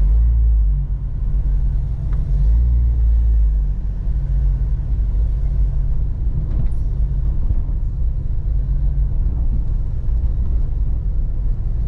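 Low, steady engine and road rumble of a vehicle driving slowly, heard from inside its cabin.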